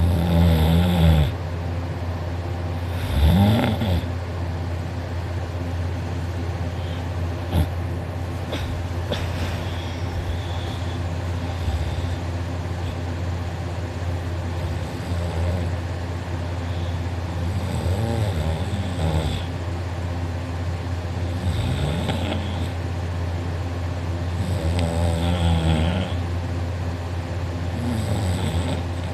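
A sleeping man snoring loudly, one snore every few seconds, in a deep sleep. A steady low hum runs underneath.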